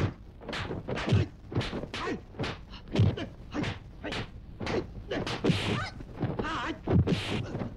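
Kung fu film fight sound effects: a quick run of punch and kick thwacks and thuds, about two a second, with a couple of fighters' shouts in the second half.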